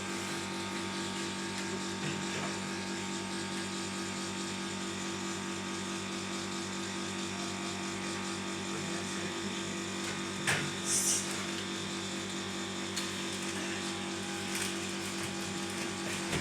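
Steady mechanical hum, with a short click and a brief hiss about ten and a half seconds in.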